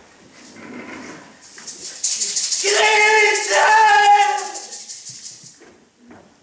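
A hand rattle shaken rapidly for about three seconds, starting two seconds in, with a voice holding a long note over it in two parts before both fade out.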